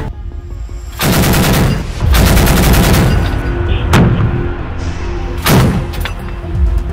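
Two bursts of rapid automatic gunfire about a second in, then two single heavy shots, over background music.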